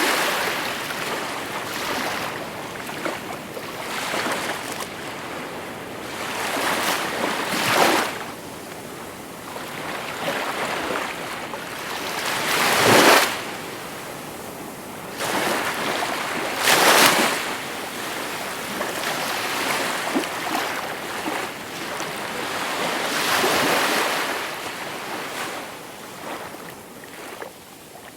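Calm sea waves breaking and washing in, a steady hiss of water that swells into a surge every few seconds, the loudest two about halfway through.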